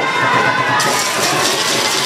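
Spectators shouting and cheering, the crowd noise growing brighter and fuller a little under a second in.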